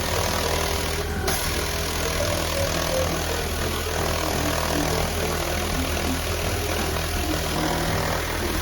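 Pressure washer running steadily: a motor drone under a hiss of water spray.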